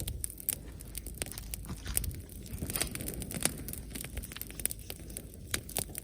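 Dry wood and twigs crackling and snapping in quick, irregular pops, several a second with a few louder cracks, over a low rumble.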